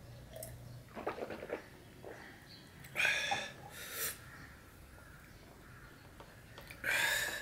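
Mouth sounds of a man eating: a gulp of water about a second in, then a loud, harsh breathy mouth sound about three seconds in with a shorter one a second later, and another loud one near the end.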